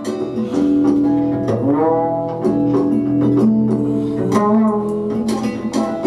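Recorded guitar music playing back from a computer music player: plucked and sustained notes over a steady low line, with a few notes bending in pitch.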